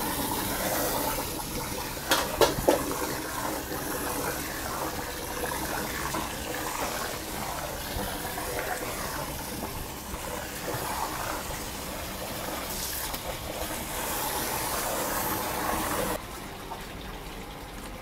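Soy milk splashing and gushing as it is ladled from a steel stockpot and poured into a large wok, with a few sharp metal clanks about two seconds in. The rushing drops to a quieter level suddenly, about two seconds before the end.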